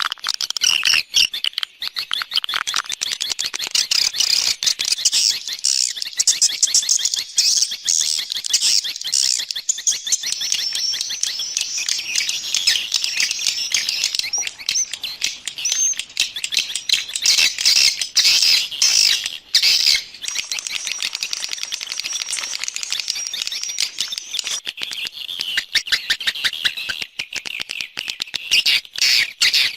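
Swiftlet calls: a dense, continuous chorus of rapid high chirps and twittering clicks. It is an external lure sound of the kind played outside swiftlet houses to draw the birds in.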